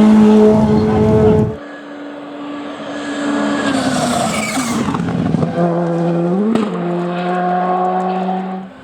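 Rally car engine running at high, held revs, cut off abruptly about a second and a half in. Then another rally car engine, quieter, holds a steady note with a quick rev blip about six and a half seconds in.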